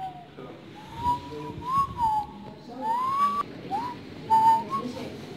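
A person whistling a tune: a run of single clear notes that slide up and down in pitch.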